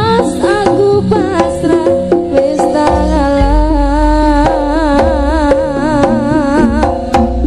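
Instrumental passage of a Javanese-language pop song: hand-drum strokes under a melody line that wavers in pitch, with a deep bass coming in about three seconds in.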